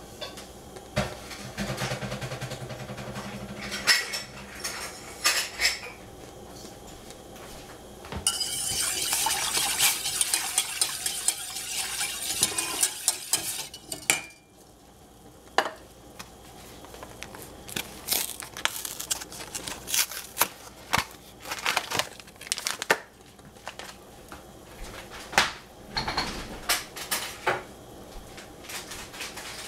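Wire whisk stirring milk and cream in a stainless steel saucepan, metal scraping and clinking on metal. A stretch of fast, steady whisking runs about a third of the way in, with scattered clinks and knocks of the whisk on the pan before and after.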